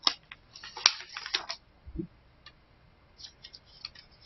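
Hands handling the pages of a picture book: a quick run of crisp paper clicks and rustles in the first second and a half, a soft thump about two seconds in, and a few light clicks near the end.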